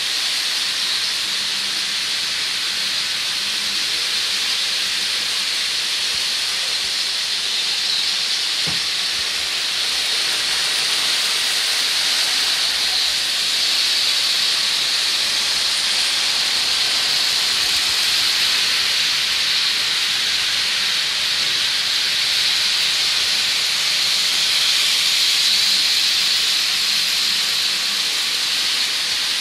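Many battery-powered Power Trains toy trains running at once on plastic track: a steady, high-pitched whir of small motors and wheels that blends into a hiss.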